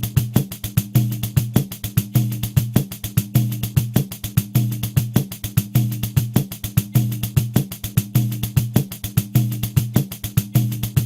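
Pandeiro playing a steady groove at 100 beats per minute: a continuous run of even jingle strokes, with deep open bass tones of the drumhead recurring regularly on the beat.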